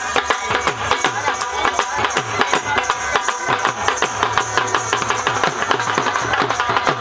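Been baja band playing: a reedy been melody over a quick, steady dhol drum beat.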